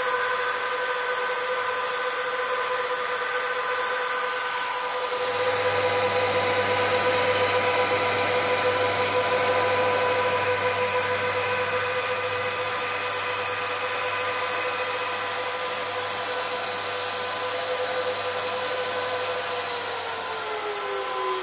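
Canaan Avalon 1047 bitcoin miner's cooling fans running just after power-on: a steady whine over rushing air. About five seconds in it grows louder and fuller, and near the end the whine drops in pitch as the fans slow.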